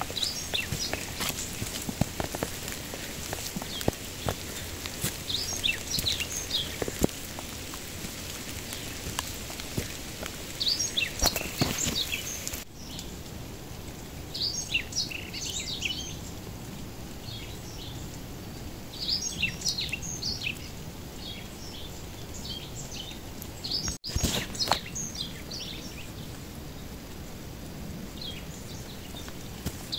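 Small birds chirping in short, high-pitched clusters every few seconds over a steady hiss of light rain. During the first part, footsteps on the wet dirt trail make scattered clicks and scuffs.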